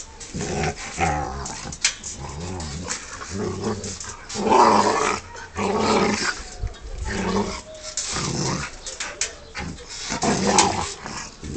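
A Rottweiler growling in play while wrestling with a person, in repeated bouts with short breaks, loudest about halfway through and near the end.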